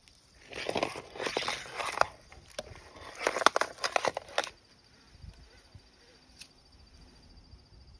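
Close rustling and crackling of dry leaves and handling noise as the phone is brought down onto leaf-strewn stones, in two spells of about a second and a half each.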